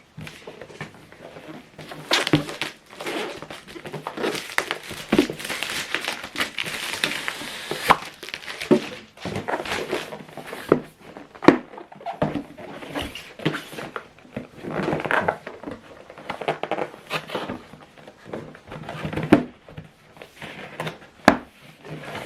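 Cardboard and paper product packaging being opened and handled: irregular rustling and crinkling with scattered sharp clicks and knocks.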